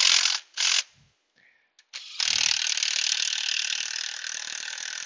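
Cordless power ratchet spinning AC compressor mounting bolts in: two short whirring bursts at the start, then a steady run of about three seconds from about two seconds in, snugging the bolts before they are torqued.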